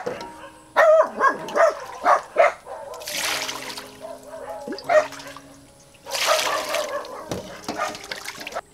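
Tap water rushing into a stainless steel bowl of fish, in two spells that stop abruptly near the end, and hands splashing and rubbing the fish clean in the water. A few short, high squeaky sounds come in the first two seconds.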